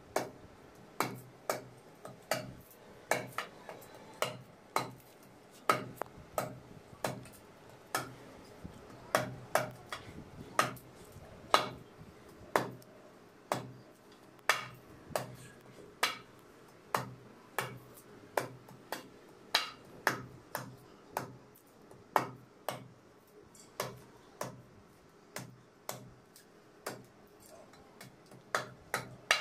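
Parang (machete) chopping a fresh tongkat ali root into thin slices on a wooden block: a long run of sharp chops at about two a second, uneven in loudness.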